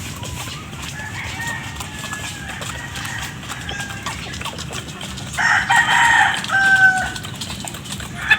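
Chickens clucking and calling, then a rooster crows loudly, a drawn-out call of about a second and a half starting about five seconds in.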